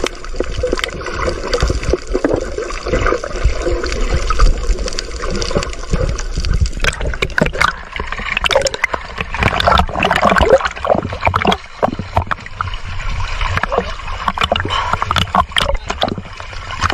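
Muffled underwater gurgling and rumble, then about seven seconds in the sound opens up into surface splashing with many sharp slaps of water, as a gill net heavy with fish is hauled up out of the sea over the side of an outrigger boat.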